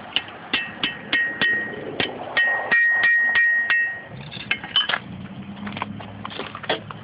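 Blacksmith's hammer striking metal on an anvil, about three blows a second, each with a bright metallic ring. Through the middle the ring carries on as one held tone between blows, and after about four seconds the blows become sparser and lighter.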